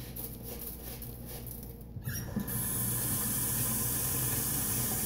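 Kitchen sink tap turned on about two seconds in, water running steadily into the sink.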